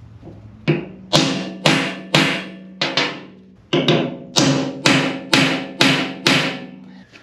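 Hammer striking a center punch on a thick steel sheet, marking drilling points: about a dozen sharp metallic taps, roughly two a second with a short pause near the middle, each leaving the plate ringing.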